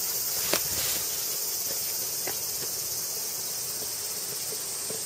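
Steady high-pitched chorus of insects shrilling. A sharp click comes about half a second in, followed by a few faint ticks.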